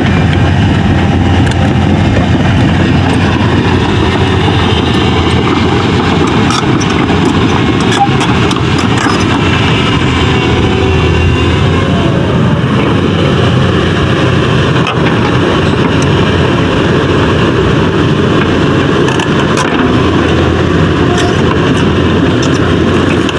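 Caterpillar 323D tracked excavator's diesel engine running steadily up close, with faint ticks here and there.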